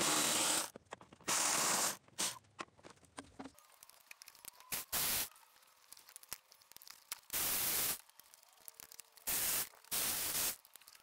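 Milwaukee M12 cordless ratchet running in about six short bursts of roughly half a second each, with a hissing sound, as it backs out the 10 mm ignition-coil bolts.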